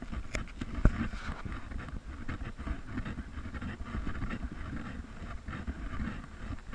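Wind rumbling on a handheld action camera's microphone, with irregular rubbing and handling noise as the camera is turned. There is one sharp knock about a second in.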